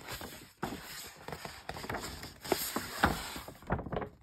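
Large glossy paper poster being unfolded and handled, the sheet rustling and crinkling with many short crackles, the sharpest a little past halfway.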